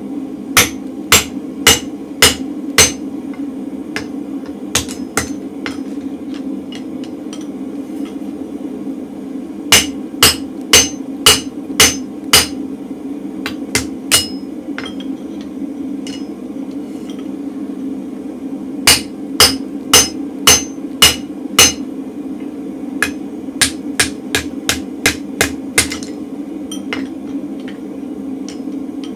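Hand hammer striking a round punch driven into a red-hot mild steel bar on an anvil, punching a hole through it over the pritchel hole. The blows come in runs of five or six at about two a second with pauses between, and a run of lighter, quicker taps comes near the end. A steady low drone from the gas forge sits underneath.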